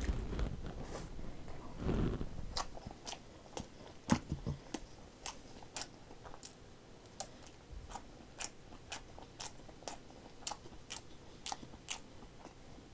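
A person chewing a dumpling close to the microphone, with a steady run of wet mouth clicks and smacks, two or three a second, and a few louder chomps near the start.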